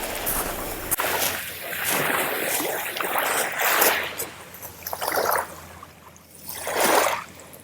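Small sea waves washing in at the water's edge: several hissing swells of wash that rise and fade, the loudest about seven seconds in.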